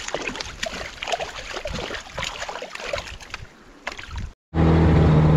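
Shallow river water splashing and sloshing with small knocks as a fish landing net is worked by hand in the water. After an abrupt cut near the end, a boat's outboard motor running steadily, louder than the splashing.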